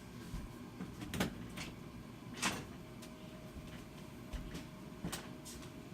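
A few scattered knocks and clicks from things being handled or set down, three of them louder, over low room noise.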